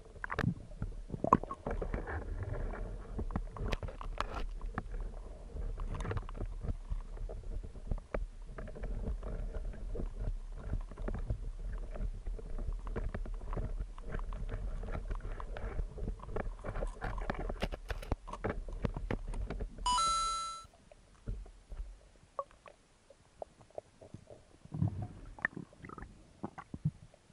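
Muffled underwater sound on a diving camera: a steady low rumble of moving water with many scattered clicks and knocks as the diver moves and handles things among the rocks. About 20 s in, a short buzzy electronic tone sounds, after which it goes quieter with only a few knocks.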